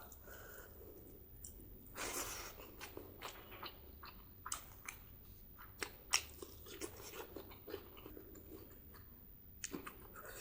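Close-miked chewing and biting of spicy pork and white rice: irregular wet mouth clicks and crunches, the loudest about two seconds in and a sharp click about six seconds in.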